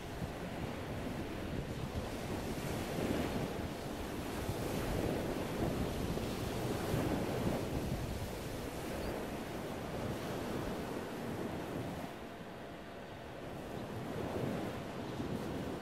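Outdoor rush of wind on the microphone mixed with shoreline water noise, swelling and easing every few seconds.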